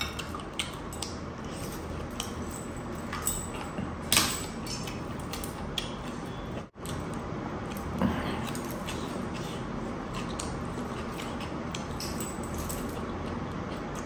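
Eating crispy fried chicken by hand: biting and chewing with many small wet mouth clicks and smacks, one sharper click about four seconds in. Heavy silver bracelets and rings jangle faintly as the hand moves.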